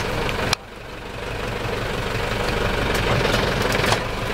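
Fishing boat's engine idling with a steady low throb. About half a second in there is a sharp knock, the sound drops away suddenly, then it builds back over the next second.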